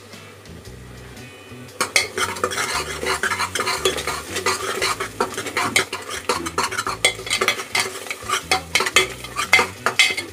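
Steel ladle stirring and scraping a sizzling onion-tomato masala in an aluminium pressure cooker, with rapid metal clinks and scrapes starting about two seconds in.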